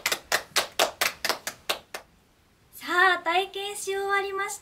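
Two women clapping their hands, about six claps a second, stopping about two seconds in. After a short pause, a woman's voice follows.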